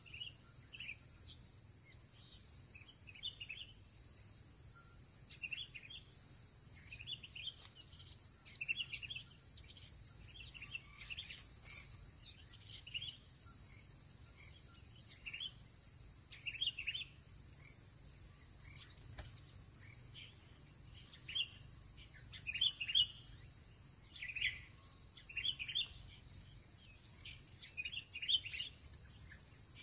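Insects, crickets or the like, trilling on one steady high pitch without a break, with frequent short bird chirps scattered over it.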